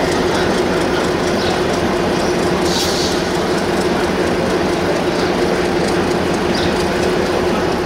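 Moving train: steady running noise of wheels on rails under a steady low hum, with a brief higher hiss about three seconds in.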